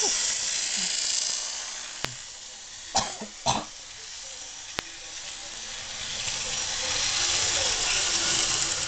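Model train of two diesel locomotives and coal wagons running past close by: a steady hiss of motors and wheels on the track that eases off in the middle and builds again near the end, with a few sharp clicks and two louder short sounds about three seconds in.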